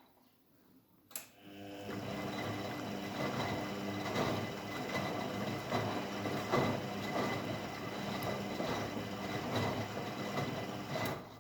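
Washing machine starting with a click about a second in, then running with a steady motor hum over a rushing noise, and stopping abruptly near the end.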